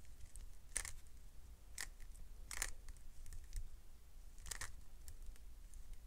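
Stickerless 3x3 speed cube being turned by hand: a few short plastic clicks as its layers snap round, spaced about a second apart, the last a quick double.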